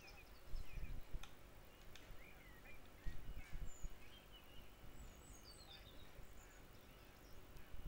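Birdsong, faint: many short chirps and warbling calls from several birds, over an uneven low rumbling noise. It is a birdsong sound effect playing back on a video-editing timeline.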